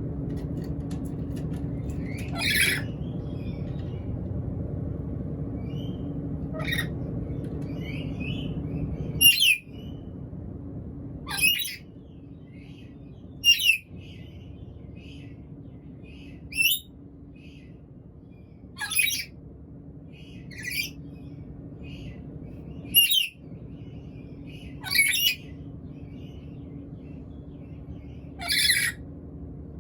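Black-capped lory giving short, shrill squawks, about eleven calls spaced roughly two seconds apart: the calling of a hungry parrot.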